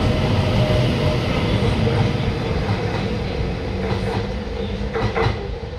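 Tyne and Wear Metrocar electric train pulling away from the platform, its steady hum and wheel rumble fading as it draws off. A few clicks of the wheels over the rails come near the end.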